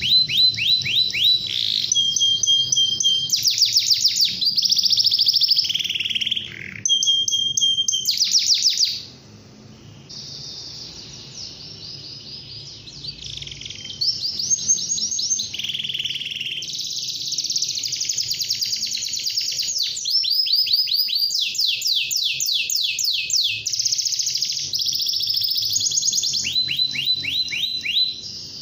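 Domestic canary singing a long, fast song of rapid trilled rolls and held whistled notes, going softer for a few seconds about nine seconds in, then singing loudly again.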